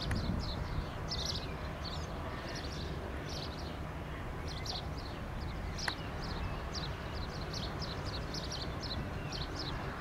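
Small birds chirping in quick, repeated high calls over a steady low rumble, with a single sharp click about six seconds in.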